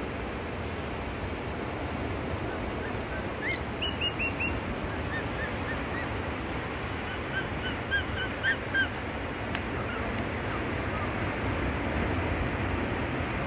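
Steady wash of surf on a rocky shore, with a bird calling in quick runs of short chirping notes from about three to nine seconds in.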